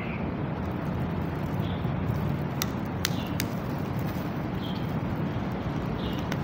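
Steady outdoor background noise with a low rumble, and a few light clicks near the middle.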